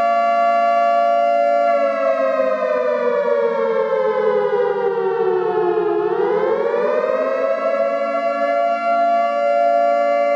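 Outdoor tornado warning siren sounding a steady two-note chord; about two seconds in its pitch slowly sinks for around four seconds, then climbs back up to the steady tone.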